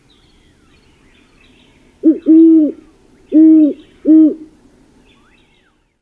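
Great horned owl hooting: four deep, even-pitched hoots, a short one run into a longer one, then after a pause two more. Faint songbird chirps in the background.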